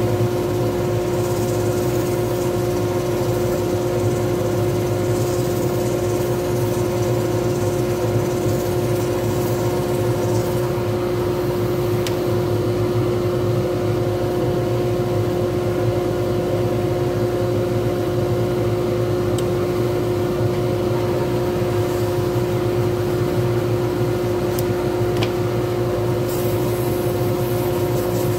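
Wood lathe running at a steady speed, a constant machine hum with several unchanging tones, while the spinning pen blank is sanded and finished by hand.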